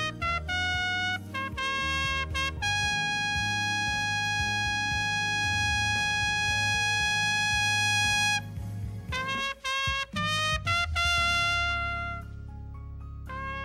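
Solo trumpet playing a slow melody: a few short notes, then one long note held for about six seconds, then a quick run of notes leading into another held note, over a low accompaniment.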